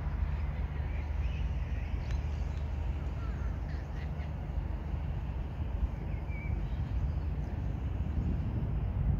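Outdoor ambience: a low steady rumble with a few short bird calls scattered through it.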